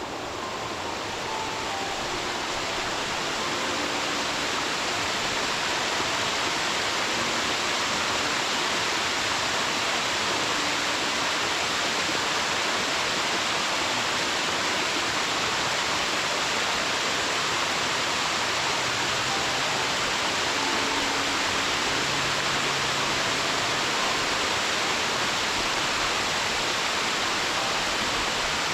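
Waterfall pouring: a steady, dense rush of falling water that fades in over the first few seconds.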